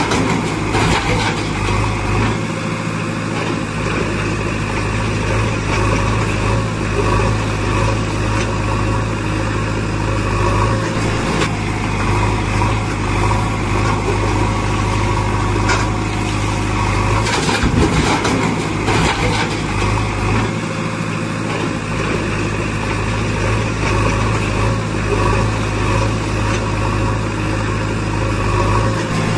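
Diesel engine running steadily, a looped sound effect whose pattern, with a brief clatter, repeats about every 18 seconds.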